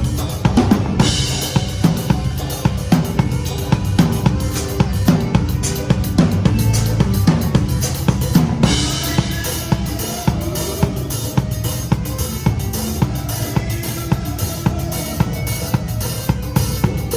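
Pearl Reference drum kit played to a song, with bass drum and snare hits throughout and crash cymbals opening out about a second in and again near nine seconds in. The song's pitched music sits underneath.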